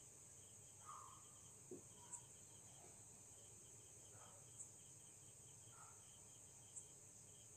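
Near silence: faint room tone with a steady high hiss and a faint, evenly repeated ticking pattern, plus a few soft squeaks and taps of a marker writing on a whiteboard.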